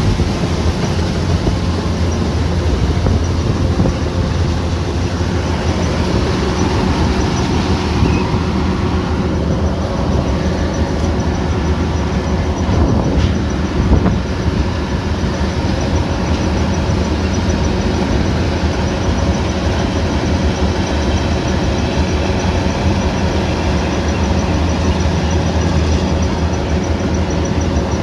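Kubota rice combine harvester running steadily, its engine and threshing machinery making a continuous loud mechanical drone with a deep hum.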